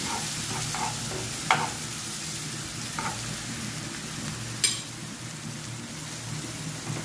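Chopped scallion and seasoning sautéing in hot oil and curry in a pot: a steady sizzle, with a few light knocks and one sharp click about four and a half seconds in.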